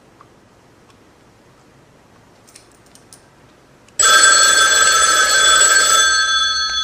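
Quiet room tone, then about four seconds in a wall pay phone's bell starts ringing suddenly and loudly and keeps ringing steadily.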